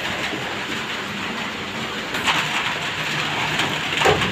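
Steady rain hiss, drizzle falling on and around a corrugated metal roof, with a few louder rattles from the bird cage being handled about two seconds in and near the end.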